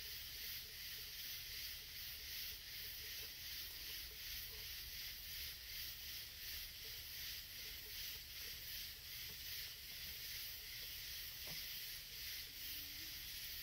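Steady, high-pitched chorus of insects with a fast, even pulsing, from the surrounding woods.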